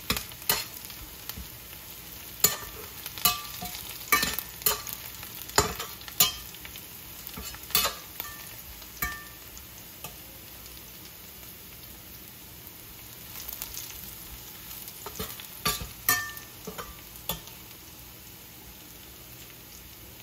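A metal slotted turner scraping and clinking against a stainless steel frying pan while stirring sliced onion and green chilli frying in oil, over a steady sizzle. Each tap leaves a brief metallic ring; the strokes come thick through the first half, pause, return in a short cluster about three quarters through, and leave only the sizzle near the end.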